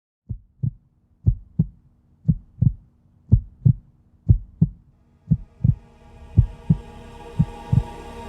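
Heartbeat, slow paired lub-dub thumps about once a second. From about six seconds in, a low hum and hiss swell in underneath.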